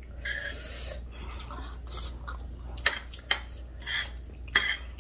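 A spoon scraping and clinking against a dish during eating, with a few sharp clinks in the second half.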